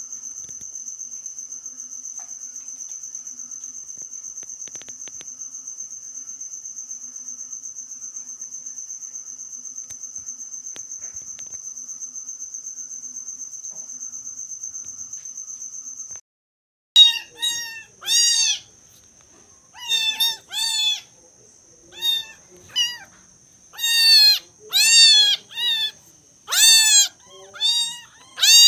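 A steady, high, pulsing cricket trill, then from about two-thirds of the way through a kitten mewing loudly and repeatedly: high-pitched cries in quick runs of two to four, with the trill still faint beneath.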